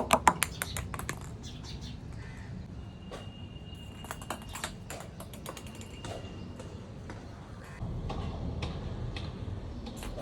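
A quick run of sharp clicks and taps, loudest in the first second, followed by scattered taps and a thin, steady high tone lasting a few seconds.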